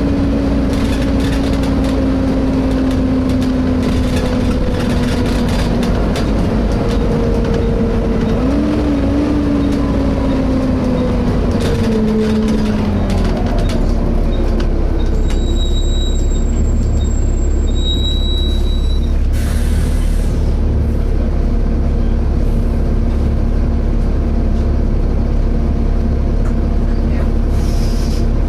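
Interior of a Volvo B7TL double-decker bus: a clear whining tone slides slowly lower in pitch, with a brief wobble partway, and fades about halfway through as the bus slows, leaving the steady low rumble of the engine and cooling fan. A short hiss of air comes about two-thirds of the way in.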